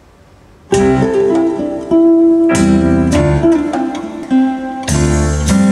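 Recorded music played back through a Luxman LX-360 tube integrated amplifier: faint steady hiss, then the music starts abruptly under a second in, a series of sharply plucked notes that ring and fade.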